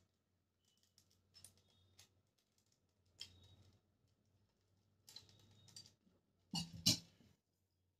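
Small plastic parts of a ring light's phone-holder mount clicking and knocking as they are handled and fitted onto its clip, in scattered short bursts, with two louder knocks near the end.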